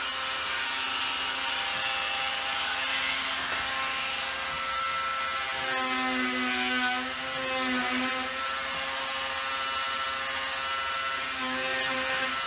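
Oscillating multi-tool running steadily with an even buzz while cutting off a protruding wood shim at the wall. Its pitch sags briefly under load about six to eight seconds in, then recovers.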